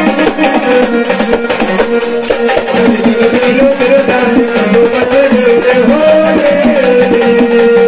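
Marathi jagran-gondhal folk music: quick, dense drum strokes under a held melody line that wavers and bends in pitch.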